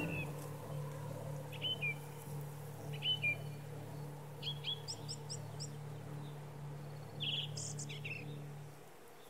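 Small birds chirping: short calls every second or two, with a quick run of higher chirps around the middle and another cluster near the end. Under them a held low music chord fades out near the end.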